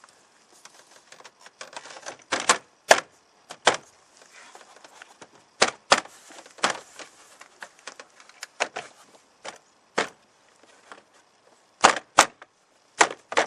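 Sharp knocks at irregular intervals, some in quick pairs, as a hand strikes the plastic interior door trim panel of a 1995–99 Chevy pickup to snap its retaining clips into the door.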